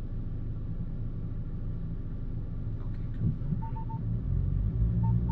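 Ford Ranger Raptor's 2.0-litre bi-turbo diesel engine running at low speed, pulling harder and louder about four seconds in. Short high electronic beeps sound three times in quick succession near the end, then once more.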